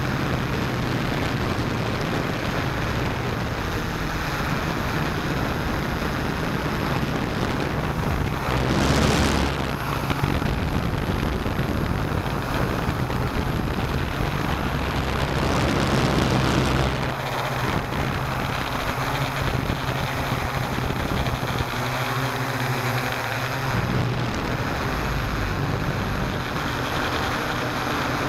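Hexacopter's electric motors and propellers droning steadily with a low hum, heard through the small camera carried on the aircraft, with wind rushing over its microphone. The noise swells twice, about a third of the way in and just past halfway.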